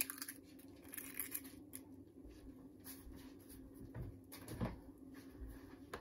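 Faint handling of raw ground beef in a stainless steel mixing bowl as an egg is cracked into it: a sharp click at the start, then a few soft clicks and squishes, over a low steady hum.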